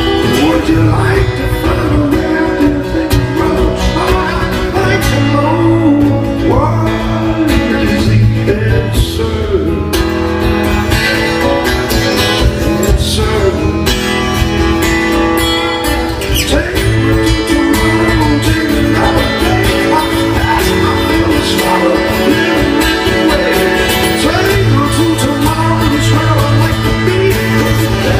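Two acoustic guitars playing an instrumental passage of a song, without sung words.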